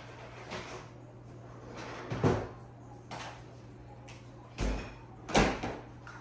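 Kitchen handling noises: three separate knocks and thumps, like cupboard doors or utensils being set down, the middle one a deep thud and the last about a second later the loudest.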